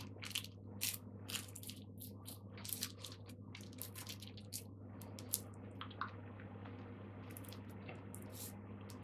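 Cigarette being hand-rolled: rolling paper and loose tobacco crinkling in quick small crackles, dense at first and thinning out over the second half, over a steady low hum.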